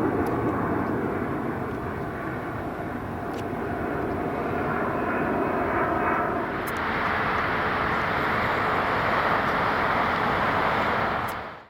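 Jet airliner flying low overhead: a steady rush of engine noise with a faint whine, growing louder and brighter about halfway through.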